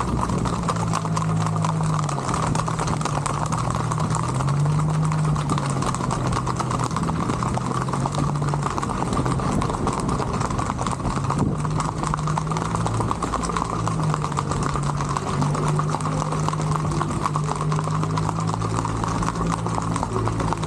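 Horses' hooves clip-clopping on an asphalt road in a fast, even rhythm under riders. A low steady hum that wavers in pitch runs alongside.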